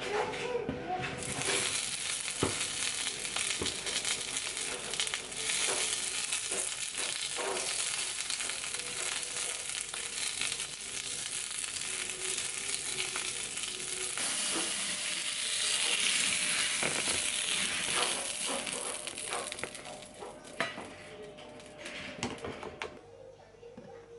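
Sausages frying in oil in a frying pan: a steady sizzle with scattered small pops and clicks, dying away near the end.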